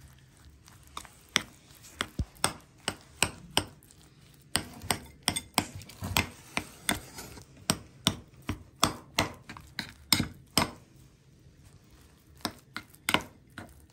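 A spoon or fork is knocking and clinking against a bowl as a thick mixture is stirred. The taps come quick and irregular, a few a second, with a short pause about three seconds before the end.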